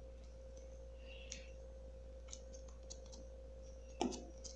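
Sticky fluffy slime being pulled and worked in the hands, making scattered faint clicks and small pops, with a louder one about four seconds in.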